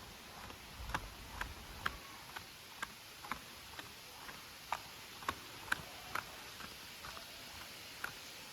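Irregular light ticks and taps, about two a second, over a faint hiss.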